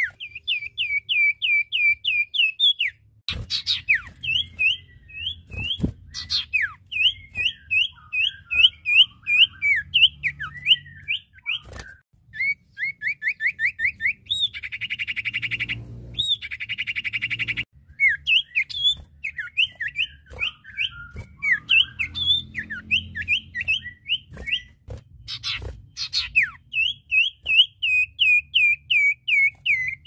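Common iora calling: quick runs of short, hooked whistled notes repeated several times a second. Two harsher, buzzy trilled notes come about halfway through.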